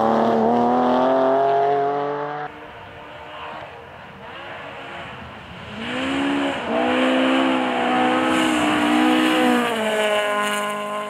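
Rally car engines at racing revs on a gravel stage. One car accelerates away and the sound cuts off sharply. After a quieter gap, an orange BMW 3-series (E36) rally car comes through loud, its engine pitch climbing and dipping at gear changes, then holding steady as it runs away.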